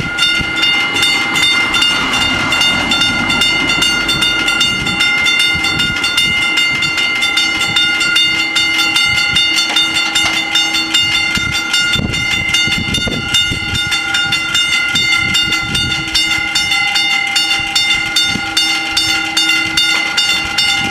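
Level crossing warning bells ringing in a fast, even run of strokes over a steady ringing tone while the lights flash and the barriers lower, warning of an approaching train. The ringing stops near the end, once the barriers are down.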